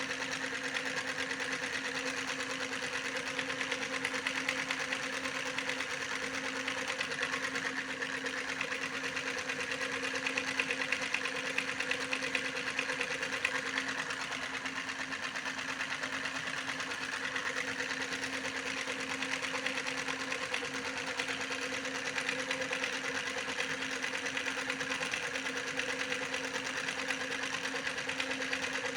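Small motor running steadily: a constant hum with a fast, fine ticking rattle over it that does not change.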